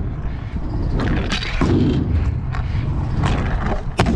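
Stunt scooter rolling on a skatepark ramp: a steady low rumble from the wheels, with knocks as the deck and wheels hit the ramp and one sharp bang near the end.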